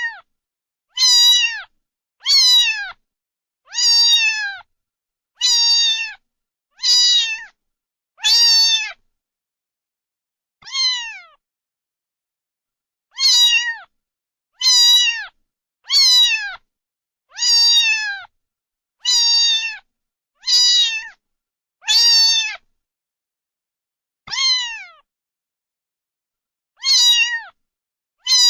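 Cat meowing over and over: high-pitched meows, each falling in pitch, about one every second and a half, with a few longer pauses.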